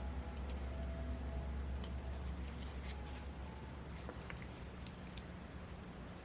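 Small screws being snugged down with a hand tool on a Saito FA-82 model engine, giving faint scattered clicks and ticks of metal on metal over a steady low hum.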